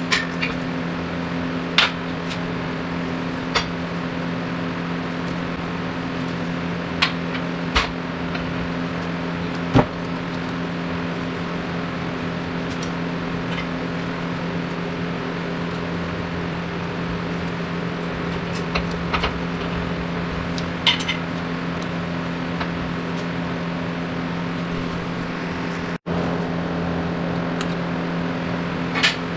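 Steady machine hum with scattered light metallic clinks and taps of tools and parts. The sound drops out for an instant near the end.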